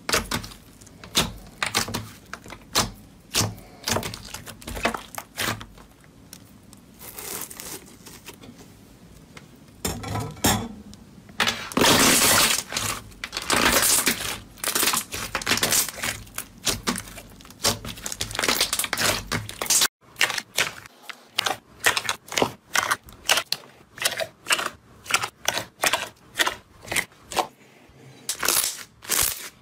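Hands squishing, pulling and pressing glossy metallic gold slime, giving a run of sticky clicks and pops, loudest and most crackly about twelve seconds in. About twenty seconds in it cuts to a white slime being pressed, a faster, regular series of crisp pops.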